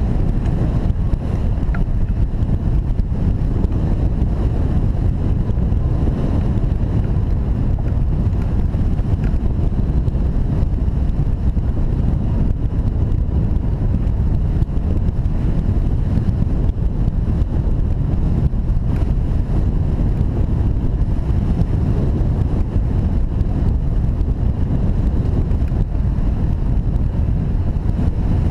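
Steady wind noise from the airflow of a hang glider in flight buffeting the wing-mounted camera's microphone, a loud, even rumble heaviest in the bass.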